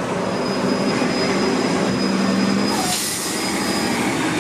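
Articulated diesel transit bus running at the curb close by, a steady low engine sound with a thin high whine over it, and a short burst of hiss about three seconds in.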